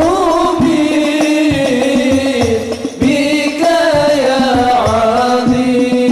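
Sholawat, an Islamic devotional song: a voice sings a bending, ornamented Arabic melody over a steady beat of low percussion strokes.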